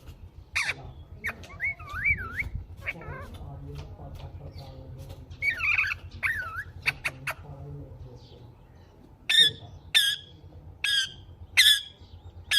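Indian ringneck parrot calling: wavering whistled calls in the first half, then about five short, sharp screeches in quick succession near the end, over a low steady hum.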